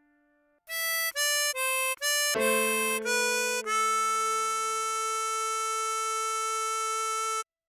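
Tremolo harmonica playing a melody: four short notes, then a few notes with a low tone sounding beneath, ending in a long held note of about four seconds that cuts off suddenly.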